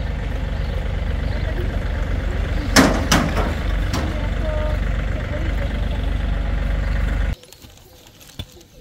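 An engine running steadily with a low rumble, with a few sharp knocks about three seconds in. The rumble cuts off abruptly near the end.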